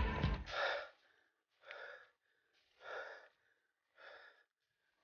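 A short stretch of background music cuts off about a second in. It is followed by a cyclist's heavy breathing while pedalling up a steep climb: separate loud exhalations, about one every second or so.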